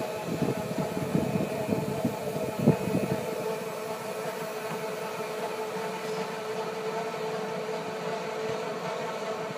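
Golf cart driving along with a steady whine. Rattling knocks come in the first three seconds, the loudest at about 2.7 s.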